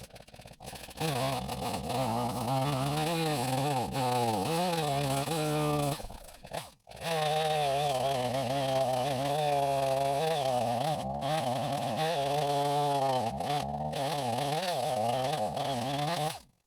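Two-stroke chainsaw cutting through a dense white oak log. The engine pitch wavers up and down under load, drops out briefly about six and a half seconds in, then picks up and cuts again before stopping abruptly near the end.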